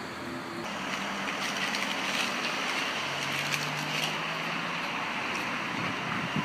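Steady outdoor background noise, a hiss with no clear single source, with a faint low hum for a couple of seconds in the middle.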